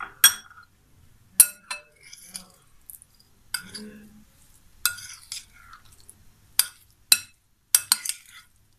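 Metal spoon clinking against a glass bowl while stirring raw chicken pieces in yogurt and spices: about ten sharp clinks at irregular intervals, with fainter mixing sounds between.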